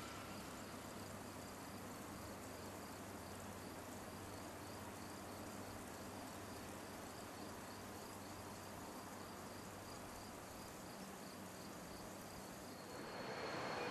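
Faint outdoor ambience of insects chirping, a high pulse repeated at an even pace, over a low steady hum. Near the end a rushing noise rises as a Rhaetian Railway train comes closer.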